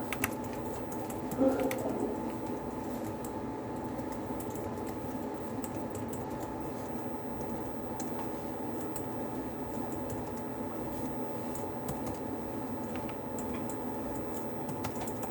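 Rapid, irregular clicking of someone typing on a computer keyboard, over a steady background hum. A short louder sound comes about a second and a half in.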